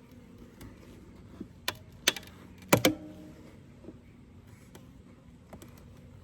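A few sharp knocks and clacks of a metal hive tool against the wooden frames of a Layens beehive as it is worked open. The loudest is a close pair about three seconds in, with a short ring after it.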